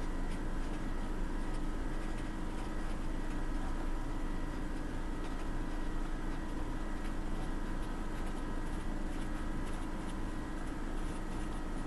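Felt-tip marker writing on paper: faint scratchy strokes over a steady background hum.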